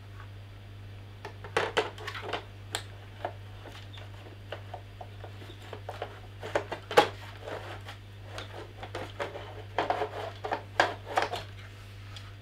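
Hard plastic parts of an Acer Predator XB271 monitor stand clicking, tapping and scraping as they are handled and fitted together by hand, in scattered clusters with the sharpest knock about seven seconds in.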